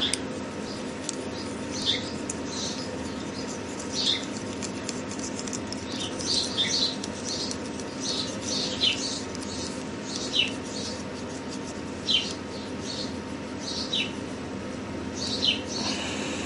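Steel burnisher rubbed over a hammered metal ring, burnishing the raised spots to a shine, giving short high squeaks that fall in pitch every second or two over a steady background hum.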